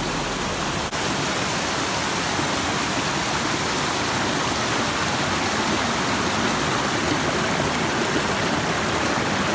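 Steady rush of whitewater pouring over boulders in a rocky mountain stream's rapids, with a brief dropout about a second in.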